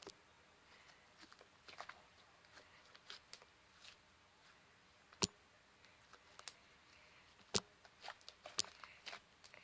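Slime being handled, with faint, scattered sticky clicks and crackles and two sharp pops, about five and seven and a half seconds in.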